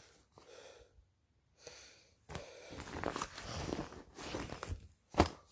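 Fabric backpack rustling as it is handled, a rough crackly stretch starting about two seconds in and lasting about two and a half seconds, followed by a single sharp click about five seconds in.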